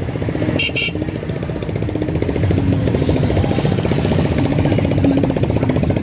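Motorcycle engine running close by with a rapid, even chugging that grows a little louder about two seconds in. A short high chirp sounds about half a second in.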